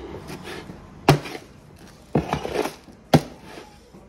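Groundbait of cracked corn, oats, chick feed and soil being hand-stirred in a container, with rough scraping and a sharp knock about one, two and three seconds in.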